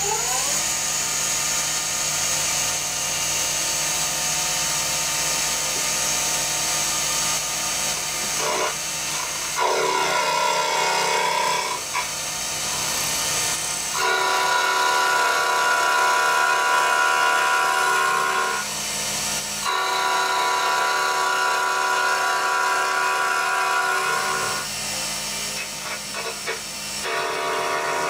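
Milling machine with a large face-milling cutter taking cuts along the edge of a cast aluminium plate. A steady machining noise with a whining tone that comes and goes in stretches of several seconds as the cutter bites.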